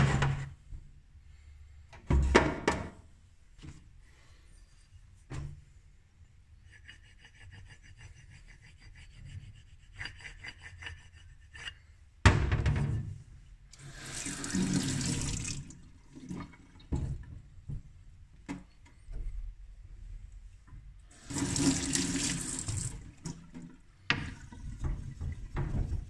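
Water running and splashing into a sharpening sink in two long bursts, with sharp knocks as stones and tools are handled. Near the end come quick back-and-forth rubbing strokes on a wet waterstone.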